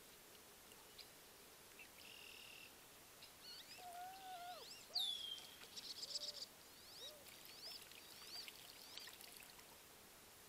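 Faint water splashing as a pair of wood ducks mate, with a run of short whistled bird calls sliding up and down in pitch, the loudest a falling whistle about halfway through.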